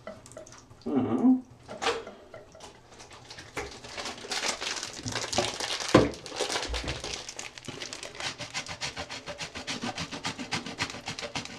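A bar of soap being grated on a handheld metal grater over a bucket: quick, regular rasping strokes that start about three and a half seconds in, with a single knock about six seconds in.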